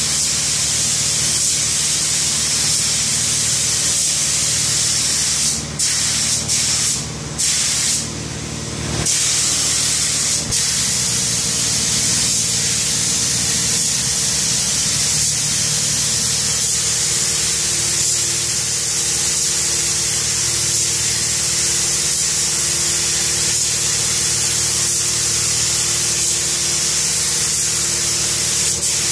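Hose-fed paint spray gun hissing steadily as a top coat is sprayed, with the trigger let go briefly a few times between about 5 and 9 seconds in. A steady low machine hum runs underneath.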